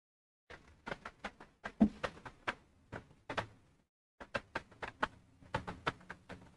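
Computer keyboard typing: quick, irregular runs of key clicks, with a short pause about four seconds in.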